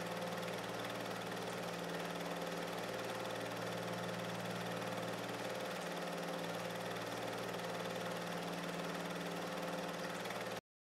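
A steady machine hum made of several fixed tones, the lowest of them fading in and out every few seconds. It stops dead just before the end.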